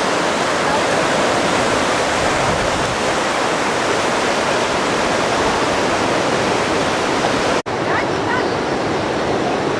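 White-water river rapids rushing in a steady roar of water. The sound breaks off for an instant about three-quarters of the way through.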